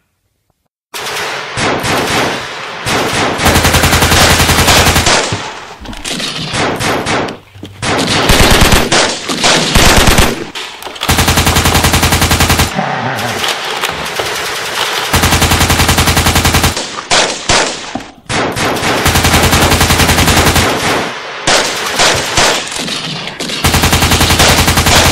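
Rapid automatic machine-gun fire in long bursts, starting about a second in, with a few short gaps between bursts.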